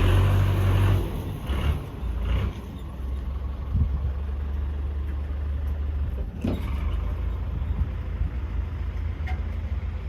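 An engine running steadily, a low hum that is loudest in the first second and then settles, with a couple of brief clicks partway through.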